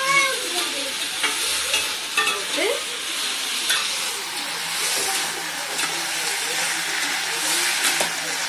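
Mushroom manchurian (fried mushrooms with onion and capsicum in sauce) sizzling in a stainless steel kadai while a steel slotted spoon stirs it, with scattered clicks and scrapes of the spoon against the pan.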